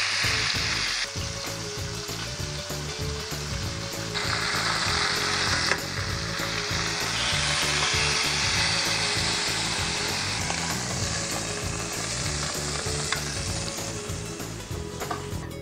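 Beef roast searing in hot oil in a stainless steel sauté pan, sizzling steadily. The sizzle drops and swells a few times as the meat is turned.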